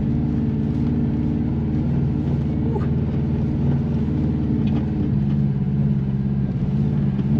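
A car engine running steadily at low revs, with a slight shift in pitch about halfway through.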